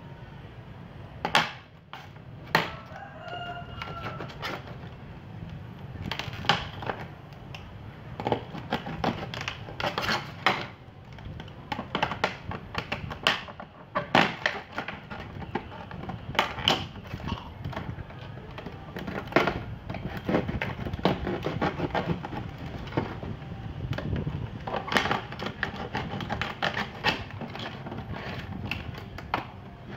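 Thin plastic of a large PET water bottle crackling and clicking in irregular sharp snaps as it is handled and cut into with a small blade. A chicken calls briefly a few seconds in.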